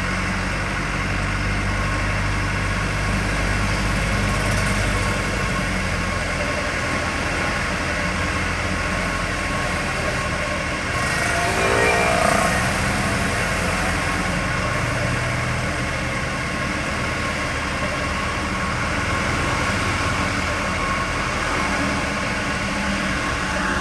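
Vehicle driving steadily on the road: a constant engine hum with road noise. About halfway through, a brief pitched sound rises and then falls.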